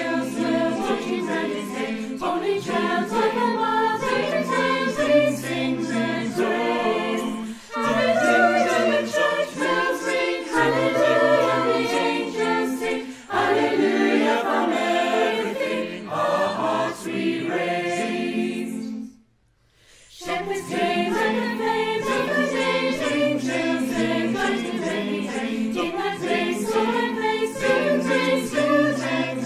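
Mixed choir of men's and women's voices singing a Christmas song in harmony without instruments, a virtual choir whose separate home recordings are mixed together. The singing breaks off to silence for about a second two-thirds of the way through, then starts again.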